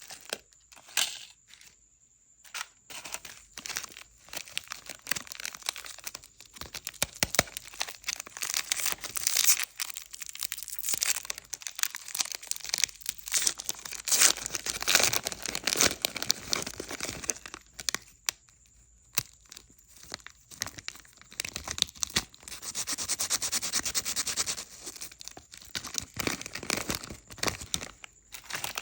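Plastic snack and candy wrappers being crinkled and torn open by hand, in bursts of sharp crackling with short pauses between them and a longer continuous stretch near the end.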